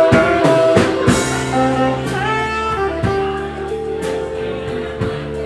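A band playing music, with drums hitting a steady beat under held instrument notes.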